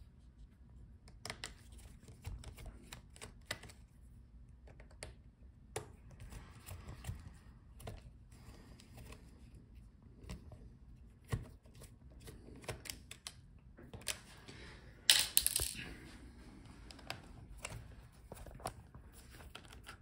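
Small scattered clicks and taps of a precision screwdriver and fingers working on the screws and parts of a laptop's motherboard, with a louder burst of rustling noise lasting about a second roughly three-quarters of the way through.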